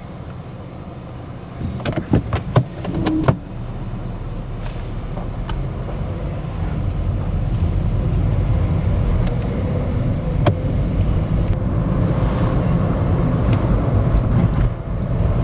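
Cabin sound inside a Skoda Fabia on the move with the windows shut: a low engine and road rumble, muffled by the car's sound insulation, that grows steadily louder as the car picks up speed. A few sharp clicks and knocks come about two seconds in.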